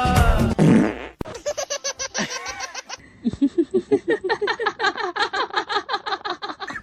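Laughing in a long run of quick, high-pitched 'ha-ha' pulses, about five a second, building up after the music cuts off about a second in.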